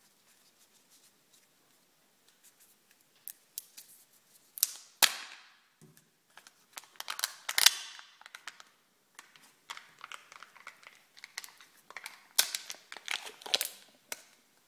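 Foil wrapper of a Kinder Joy egg crinkling and tearing as it is stripped off, then the plastic egg opened and its foil seal peeled back: a run of sharp crackles and snaps that starts a few seconds in.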